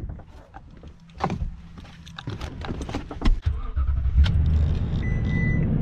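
Clicks and knocks, then about three and a half seconds in a car engine starts and settles into a steady low idle. Near the end a dashboard warning chime beeps.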